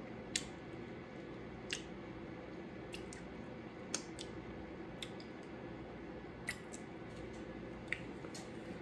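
About eight small, sharp clicks, spaced unevenly, over a faint steady hum.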